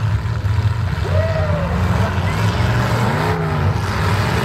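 Demolition derby cars' engines running loudly, several at once, with revving as they manoeuvre on the dirt, and a few shouts above them.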